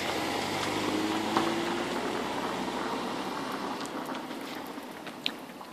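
Steady rushing outdoor background noise that slowly fades toward the end, with a faint hum early on and a few light clicks.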